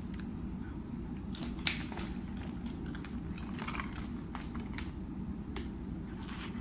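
Thin plastic water bottle crinkling and clicking as it is handled and drunk from, with small swallowing sounds, over a steady low hum.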